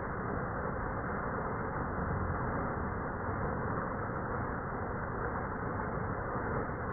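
River water rushing in a steady, unbroken wash of noise.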